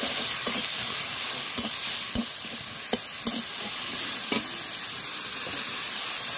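A masala of coconut, tomato and ginger sizzling in a black kadai as a spatula stirs and scrapes it. A few sharp clicks come from the spatula knocking against the pan.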